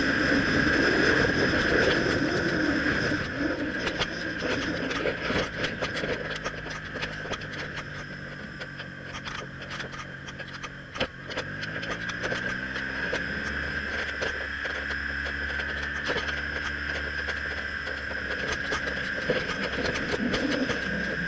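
BMW R1200CL motorcycle's boxer-twin engine running on the move, under steady rushing wind on the microphone. About eleven seconds in, the engine note rises quickly as it revs up, then holds steady.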